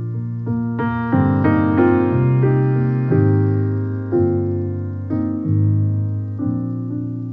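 Background music: piano playing a gentle melody of single notes and chords, with a quicker run of notes about a second in.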